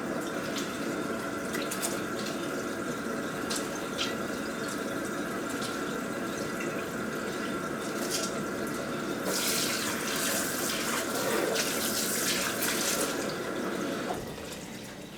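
Kitchen sink faucet running while hands are washed under the stream. The splashing grows louder and hissier for a few seconds near the end, and then the tap is shut off.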